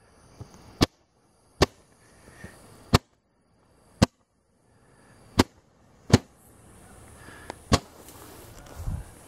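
Fireworks firing from a home-made paper-tube launcher: about eight sharp pops, irregularly spaced a second or so apart, with a faint hiss between them. A brief low rustle near the end.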